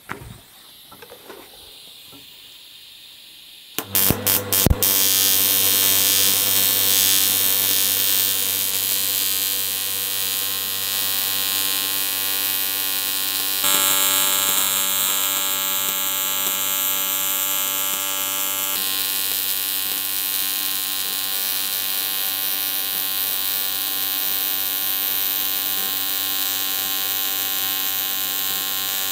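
AC TIG welding arc from an R-Tech TIG261 AC/DC inverter welder on a cast aluminium crankcase. After a few sharp crackles as the arc strikes about four seconds in, it settles into a steady, loud buzz with hiss.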